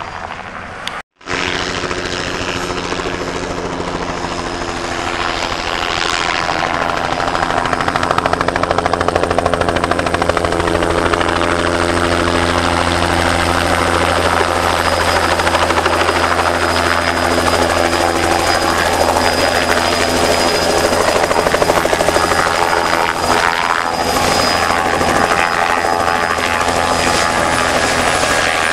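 Bell helicopter's rotor and engine, growing louder as it comes in close, then running steadily with a high whine over the drone. A brief dropout about a second in.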